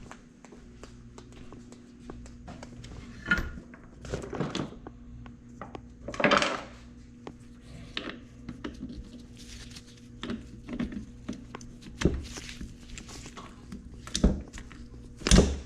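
Scattered metal clinks and knocks as engine parts and tools are handled on a motorcycle engine's clutch side during reassembly, with a louder clank about six seconds in and several more near the end.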